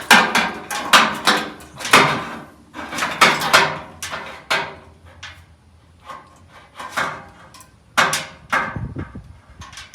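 A run of irregular sharp metal knocks and clatters from a fuel-tank sending unit being handled and turned against the tank while its bolt holes are lined up.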